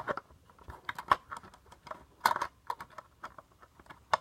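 Irregular clicks and taps of a circuit board being handled and fitted into a personal monitor mixer's housing, with two louder knocks about one and two seconds in.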